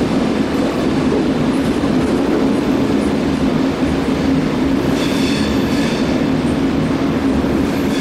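SBB ETR 610 electric tilting train rolling slowly past along the platform, a steady rumble and hum of wheels and traction. From about five seconds in a faint high squeal from the wheels rises over it.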